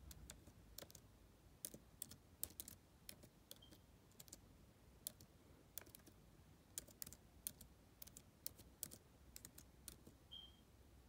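Typing on a computer keyboard: faint, irregular key clicks in quick runs with short pauses between them.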